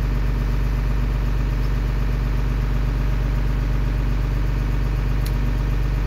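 Engine of a 3155 tractor running steadily at a constant speed, heard from inside the cab as an even low hum. A faint click comes about five seconds in.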